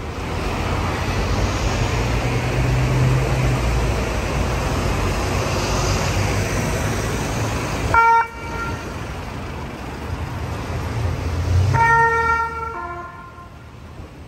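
An ambulance's European-style hi-lo two-tone siren. It gives a short blip of the high tone about eight seconds in, then near the end sounds one high tone followed by one lower tone. Before that there is a steady low rumble of engine and street noise.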